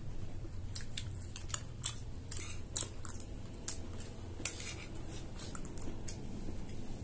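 Small metal spoons scraping and clicking against plates as two people scoop up chatpate, irregular light clicks with two sharper ones about three and four and a half seconds in, along with some chewing.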